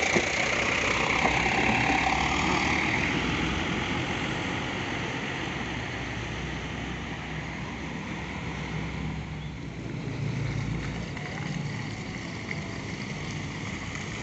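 A bus passing close with its engine running and tyres rolling through puddles and mud, loudest in the first few seconds and then fading into a steady low engine rumble from vehicles moving on the wet road.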